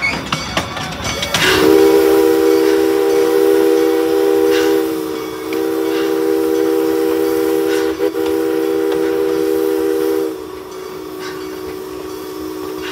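Steam locomotive whistle blowing one long chord of several notes at once, starting about a second and a half in and lasting about nine seconds. About ten seconds in it drops to a single lower note that carries on more quietly until near the end.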